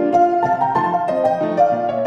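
Background piano music, a quick run of struck notes changing several times a second.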